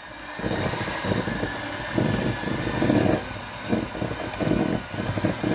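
Handheld electric mixer running, its beaters churning butter chunks and sugar in a stainless steel bowl, with uneven knocking as they hit the lumps and the bowl.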